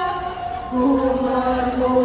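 Voices chanting in long held notes, stepping down to a lower note a little under a second in.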